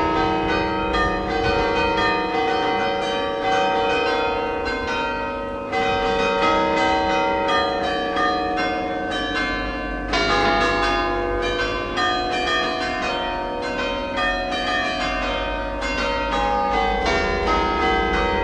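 A ring of eight bronze church bells tuned to an E-flat tenor, pealing together: dense, overlapping strokes several times a second, each note ringing on under the next.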